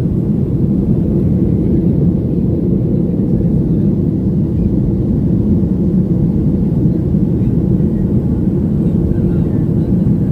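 Airliner cabin noise inside a Boeing 737-900: a steady low rumble of the jet engines and airflow.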